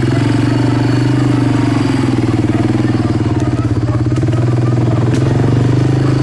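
Small off-road vehicle engine running steadily at low speed, with a few faint clicks over it.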